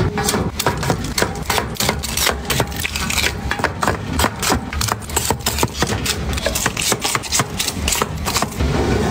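Small paperboard milk cartons knocking against one another and against a plastic fridge drawer organizer as they are packed in: a quick, uneven run of light taps and knocks.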